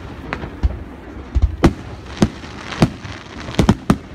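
Aerial firework shells bursting overhead: a string of sharp, irregularly spaced bangs, about nine in all, with several close together near the end.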